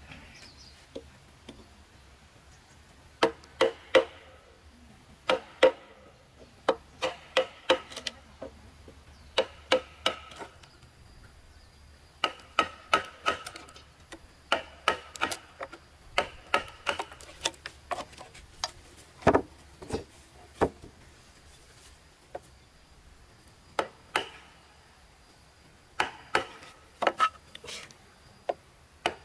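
Hand tool striking wood in quick runs of two to five blows with short pauses between, some strikes ringing briefly.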